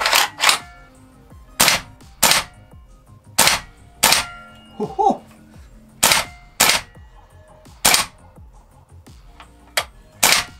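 Umarex/VFC PSG-1 gas blowback airsoft rifle dry-fired on propane without BBs: sharp cracks of the gas release and bolt blowback, about a dozen, mostly in pairs about half a second apart.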